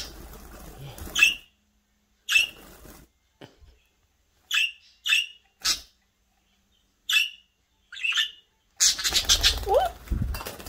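Budgerigars chirping: short, sharp, high calls, one at a time with pauses between, followed near the end by a denser, noisier burst of chatter.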